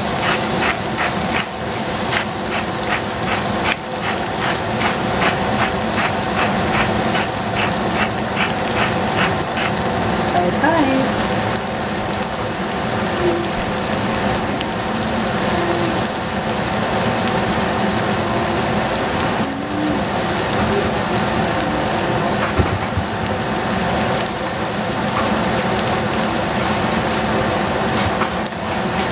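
Sliced onion, shallot, carrot and celery sizzling steadily in a stainless steel pot. A light, regular ticking, about two a second, runs through roughly the first ten seconds.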